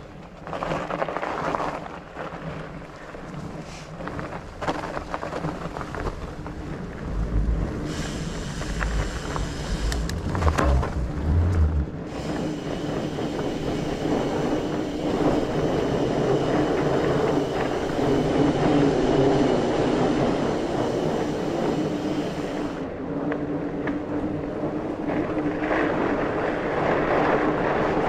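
Mountain bike riding over a dirt trail: continuous rattle of tyres and drivetrain with wind on the microphone, and heavy knocks over bumps about a third of the way in.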